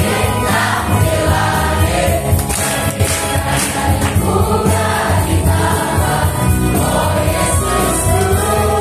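A large group of young people singing a praise song together in unison over amplified backing music with a steady bass.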